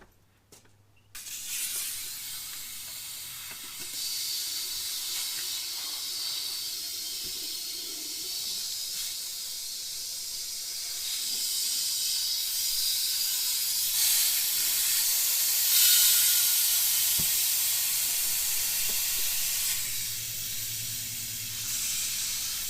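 Compressed air hissing steadily into a small go-kart tire to inflate it and seat the bead on the rim. It starts about a second in and is loudest a little past the middle.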